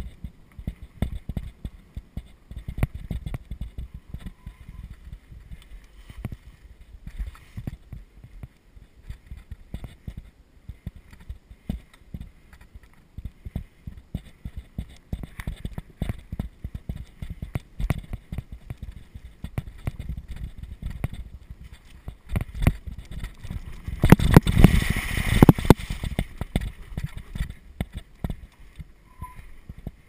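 Surly Pugsley fat bike ridden over a bumpy dirt trail: constant irregular knocking and rattling from the jolts over a low rumble. About 24 seconds in, a louder rush of noise lasts about a second and a half.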